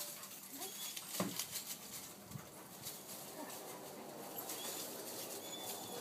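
Dogs playing and scuffling through dry leaves, with a brief dog vocalisation about a second in.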